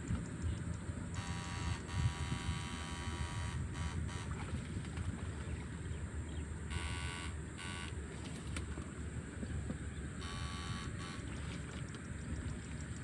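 Electrofishing shocker buzzing in short spells, about two seconds, then twice briefly, as the current is switched on and off, over a steady low rumble.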